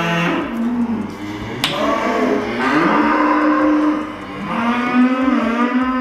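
Dairy cows mooing: long drawn-out calls, one after another, several in a row. A sharp click comes about a second and a half in.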